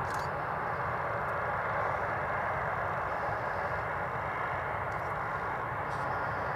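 Boeing 747-400's four Pratt & Whitney turbofan engines running at taxi power as the jet taxies: a steady, even rush of engine noise.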